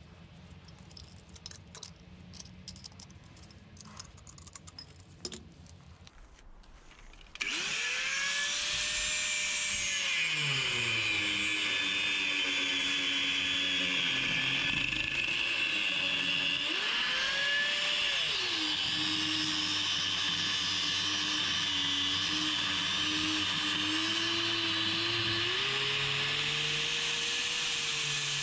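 Mains angle grinder with an abrasive cut-off disc cutting through the hardened shackle of a Litelok lock, started about seven seconds in after a few quiet clicks of the disc being fitted. Its motor whine drops as the disc is pressed into the metal and rises again when it is eased off, over a steady grinding noise.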